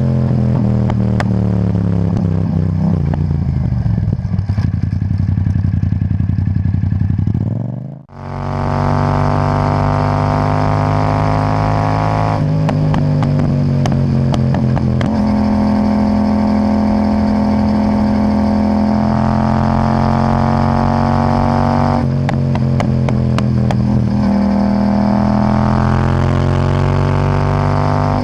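Yamaha MT-07's parallel-twin engine breathing through an Akrapovic titanium exhaust with no catalytic converter. Its pitch falls over the first few seconds, the sound dips briefly about eight seconds in, then the revs climb slowly and drop suddenly twice, about twelve and twenty-two seconds in.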